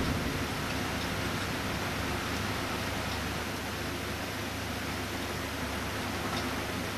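Steady hiss of heavy rain during a thunderstorm. The last of a low thunder rumble dies away at the very start.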